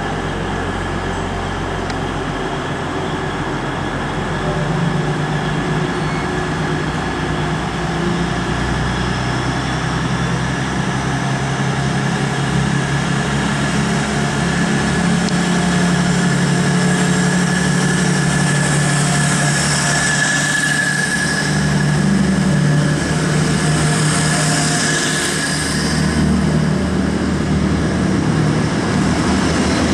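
Grand Central Class 180 diesel multiple unit's underfloor diesel engines running steadily at a station platform, then pulling away so that the carriages roll past. The sound grows a little louder about halfway through, with a hiss in the upper range for a few seconds after that.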